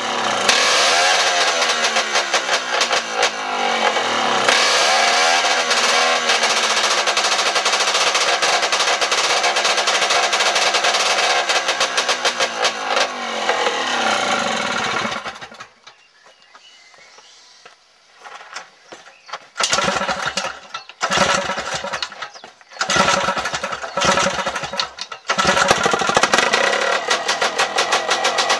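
Fichtel & Sachs Stamo 202 single-cylinder two-stroke stationary engine running, its speed swung up and down twice by hand on the throttle in the first few seconds, then running steadily. About halfway through it falls quiet for a few seconds, comes back in several short, abruptly cut bursts, and runs steadily again near the end.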